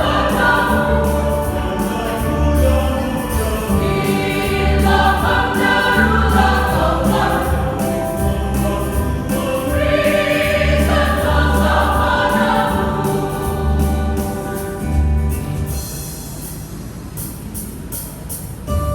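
Church choir singing a Christian hymn over a low, steady accompaniment. The singing dies away about three seconds before the end, and the sound grows quieter.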